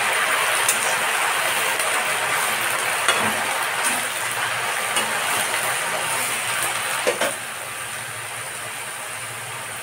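Leafy greens sizzling in a steel karahi, stirred with a metal spatula that clinks against the pan a few times. The sizzle gets quieter about seven seconds in, just after a last clink.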